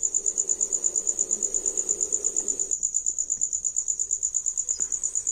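Insect trilling steadily: a high-pitched pulsing that repeats about ten times a second without a break.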